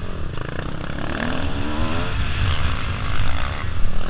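1996 Kawasaki KX250's single-cylinder two-stroke engine revving, its pitch climbing again and again as the throttle is worked, with wind rumble on the helmet-mounted microphone.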